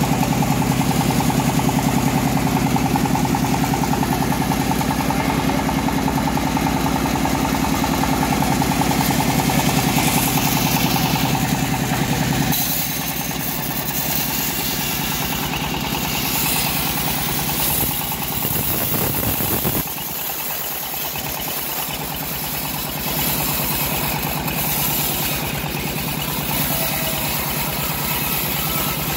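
Homemade bandsaw sawmill running under its engine, the blade cutting lengthwise through an old teak log. It runs steadily; the low engine note drops and changes character about twelve seconds in.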